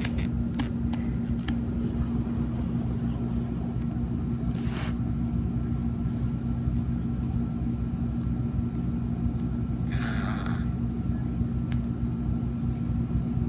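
Steady low hum with two even tones, running unchanged, with a few soft rustling handling noises on top, the longest about ten seconds in.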